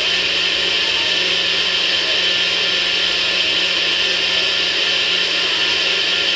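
Personal bullet-style blender running flat out, blending a thick fruit and oat-milk smoothie. The motor gives a loud, steady whine with a constant low hum under it.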